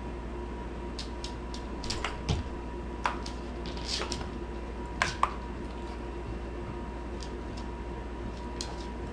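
Light clicks and taps of a small white terrier's claws on a hardwood floor as it moves about, in scattered clusters during the first five seconds and once more near the end, over a steady faint hum.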